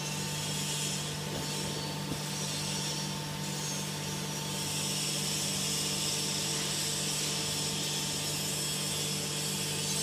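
Hydraulic power unit of an ENERPAT two-ram can baler running steadily: a constant electric motor and pump hum over a fan-like hiss, which grows slightly louder about halfway through.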